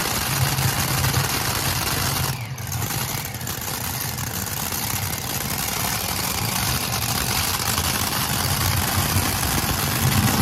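Modified pulling tractor's several supercharged engines idling together with a loud, rough rumble as the tractor creeps back to the sled for hook-up. The level dips briefly about two and a half seconds in.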